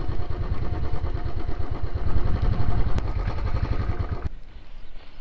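2019 Royal Enfield Classic 500's single-cylinder engine running at low revs as the bike rolls slowly, then cut off abruptly about four seconds in.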